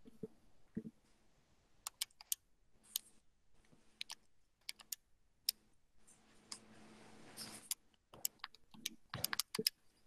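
Scattered sharp clicks of keys being tapped, a few at a time with pauses between, as when working out a calculation.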